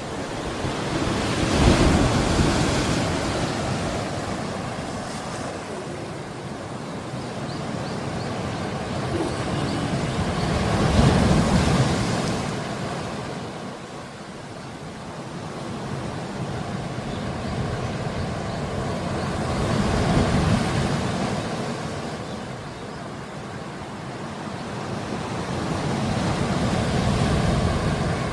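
Ocean surf breaking into white water and washing up the shore, swelling about every nine seconds, four times.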